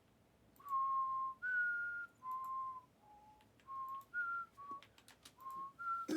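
A person whistling a short tune of about nine clear held notes, stepping up and down in pitch with short gaps between them, over a few light clicks.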